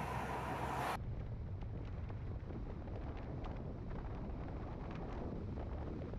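Low rumble of a vehicle with wind noise on the microphone. The sound changes abruptly about a second in, from a brighter hiss to a duller, lower rumble.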